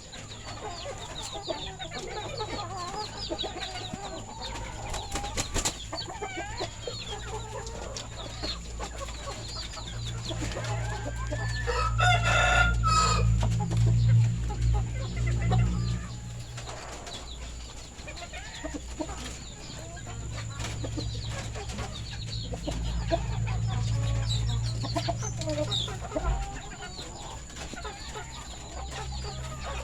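A flock of village chickens clucking throughout, with a rooster crowing once about twelve seconds in. Underneath, a low rumble swells twice.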